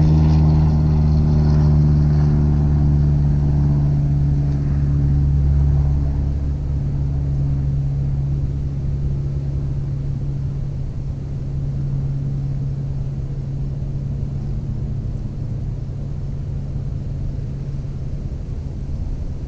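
A steady, low engine drone made of several held tones that slowly fades, with its higher tones dying away in the first few seconds.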